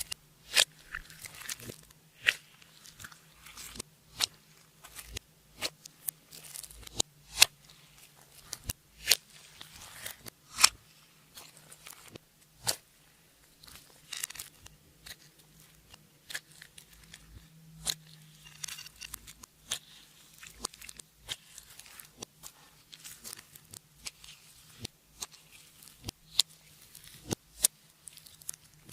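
Clear slime being kneaded and pressed by hand, giving sharp, irregular clicks and pops, about one or two a second.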